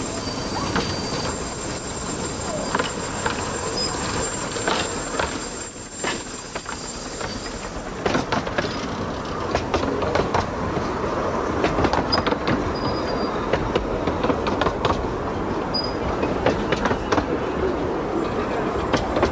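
A 15-inch gauge steam train approaching and passing close by. From about 8 seconds in, the coaches roll past with a run of sharp clicks from the wheels going over the rail joints.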